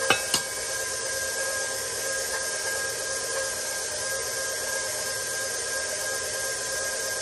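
Electric stand mixer running steadily, its dough hook turning flour and dough in a stainless steel bowl, with a steady motor whir. A couple of light clicks right at the start.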